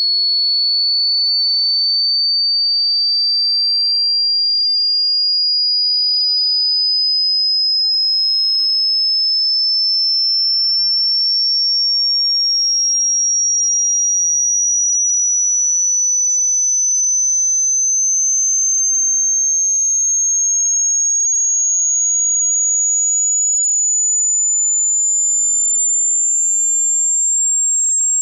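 A pure sine test tone gliding slowly and steadily upward in pitch, from about 4,400 Hz to about 7,500 Hz: a frequency sweep for a hearing test.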